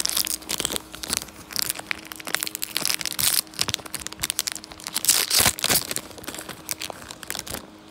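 Foil Pokémon booster pack wrapper crinkling and tearing as it is ripped open by hand, a dense run of crackles that is loudest about five seconds in and stops just before the end.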